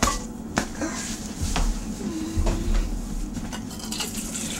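Kitchenware clattering: about four sharp clinks and knocks of dishes and utensils, then water poured from a glass measuring cup into a stainless steel mixing bowl near the end.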